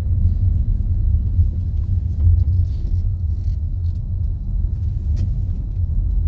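A steady low rumble with no clear pitch, with a faint click about five seconds in.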